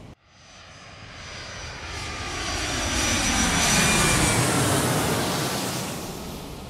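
A fixed-wing aircraft flying past. Its engine noise builds to its loudest about four seconds in, the pitch dropping as it passes, then fades.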